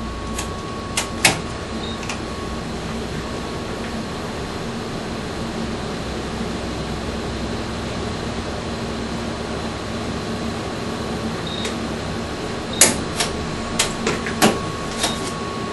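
Steady hum of lab test equipment, with a few sharp clicks in the first second or so as the surge generator's front-panel controls are pressed. A run of louder, sharp clicks comes near the end.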